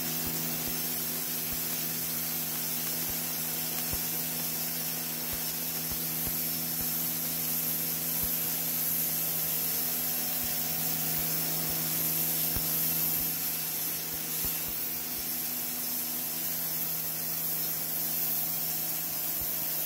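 Sun Joe electric pressure washer running steadily: the motor and pump hum while the 0-degree nozzle's pencil jet hisses hard against a concrete floor.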